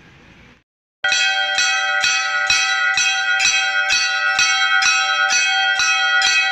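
Hanging Hindu temple bell rung by hand, struck about twice a second, each stroke ringing on so the tones overlap. It starts about a second in, after a brief faint hum.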